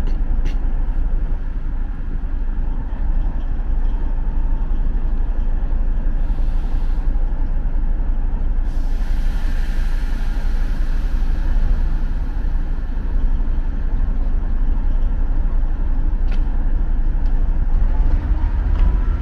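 A diesel locomotive runs with a steady low rumble. Compressed air hisses briefly about six seconds in, then again for longer from about nine seconds on, with a few sharp clicks.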